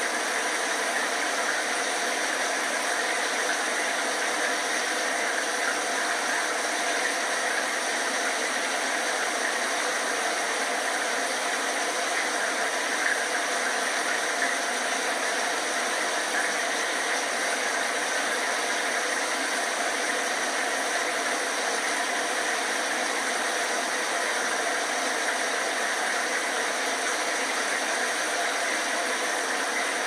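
A running shower: a steady, even rush of spraying water that does not change.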